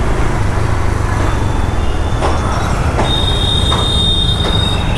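Motorcycle riding in traffic: a steady low rumble of engine, road and wind noise. A steady high-pitched squeal joins in about three seconds in.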